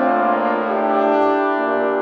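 Trombone ensemble, tenor and bass trombones together, playing sustained chords in harmony, with the chord changing twice.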